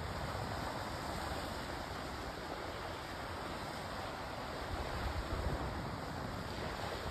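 Sea waves washing steadily against a rocky shore, an even rushing noise.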